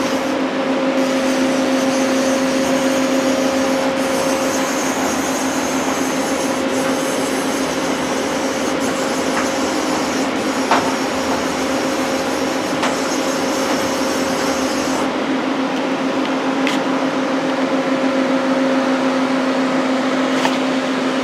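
Daewoo Puma 240 CNC lathe running with a steady hum while its Z axis is jogged. A higher hiss comes in about a second in and stops about fifteen seconds in, with a few faint clicks.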